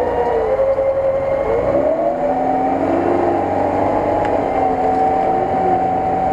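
Lada Niva (VAZ 4x4) engine running at high revs under load as the car churns through a muddy stream. Its pitch dips about a second and a half in, then climbs and holds steady.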